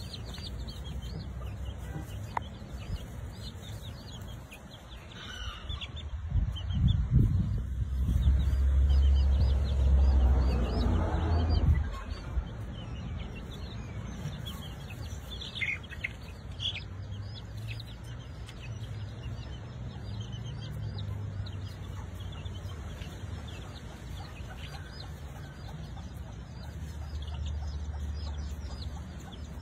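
Baby chicks peeping, short high cheeps scattered all through, over a low rumbling background that grows louder for several seconds in the middle.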